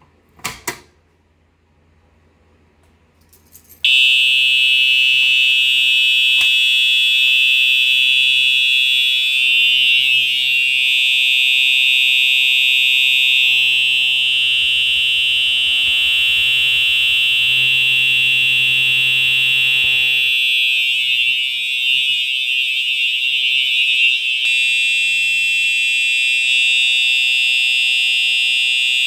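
Home fire alarm system's horns sounding a loud, steady, high-pitched alarm tone, starting suddenly about four seconds in after a click. The tone changes slightly about twenty-four seconds in.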